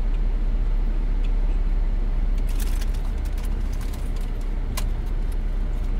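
Steady low rumble of an idling car heard inside the cabin, with a few short crinkles of a chip bag being handled, about two and a half seconds in and again near the end.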